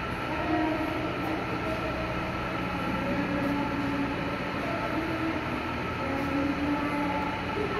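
Steady droning room hum with a constant thin whine running over it.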